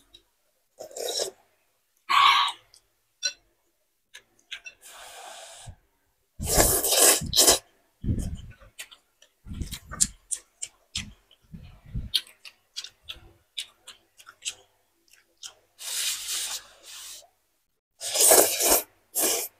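A person eating spicy noodle soup close to the microphone: loud slurps of noodles and broth, with chewing and small wet mouth clicks between them. The slurps come about six seconds in, again around sixteen seconds, and near the end.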